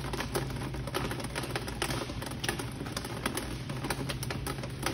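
Rain on the supermarket roof heard from inside: a dense, irregular patter of small taps over a steady low hum. The roof is leaking onto the floor.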